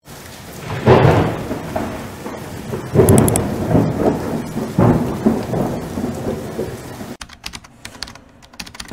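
Thunderstorm: steady rain with three rolls of thunder, about a second in, three seconds in and near five seconds. Around seven seconds the storm gives way to a quick run of sharp clicks.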